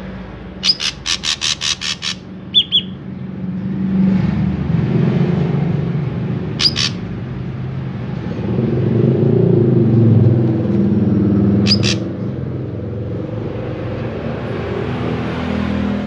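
Ashy drongo calling: a quick run of about nine sharp, high notes, a couple more just after, then single sharp notes twice later on. A low background rumble runs underneath and swells in the middle.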